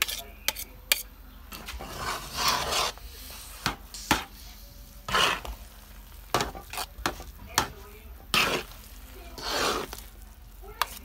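A utensil stirring thick, sticky biko in a large pan, scraping through the rice and knocking against the pan in irregular strokes about a second apart. The rice, cooked in coconut milk and brown sugar, sizzles faintly underneath.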